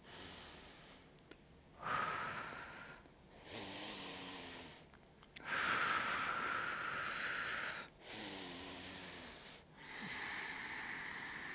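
A woman breathing deeply and audibly through the mouth: six long breaths, in and out, each one to two seconds, paced to a slow spinal wave. Two of the exhales carry a faint voiced sigh.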